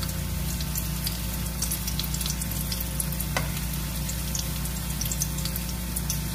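Hot oil sizzling and crackling steadily around skewered wonton-wrapped meatballs deep-frying in a wok over medium heat. A single sharper click comes about three and a half seconds in.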